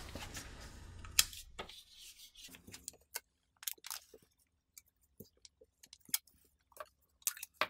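Clear packing tape being unrolled and wrapped around a pair of plastic battery cases: scattered short crackles and ticks.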